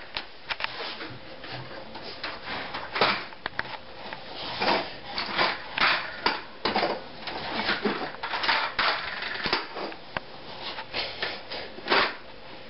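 Scattered knocks, taps and clatter with rustling at an uneven pace, from people moving about and handling things.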